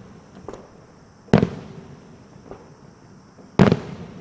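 Aerial firework shells bursting: two loud booms, about a second in and again near the end, each trailing off, with fainter pops between.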